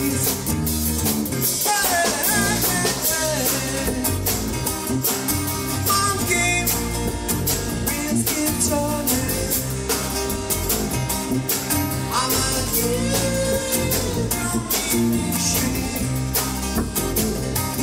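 Rock song with singing, guitar and drum kit.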